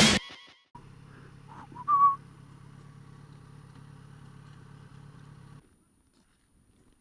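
Motorcycle engine idling faintly and steadily, with a short rising whistle about two seconds in. The hum cuts off suddenly near the end.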